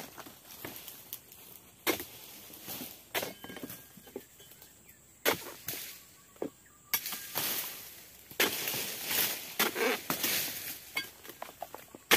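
Oil palm harvesting chisel (dodos) on a long pole chopping into frond bases and a fruit-bunch stalk to cut the bunch free: a string of sharp chops about every one to two seconds, the later ones followed by longer rustling of cut fronds.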